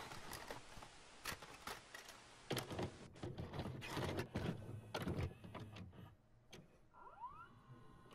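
VHS video cassette recorder going from stop to play: tape hiss at first, then a run of clicks and clunks from the loading mechanism, and about seven seconds in a motor whir that rises in pitch and settles into a steady hum.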